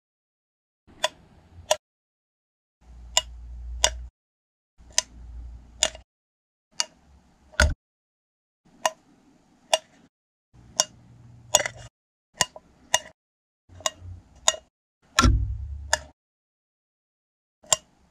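Sharp clicks in pairs, about nine pairs, one pair every second and a half to two seconds, with a low rumble under several of them and silence in between.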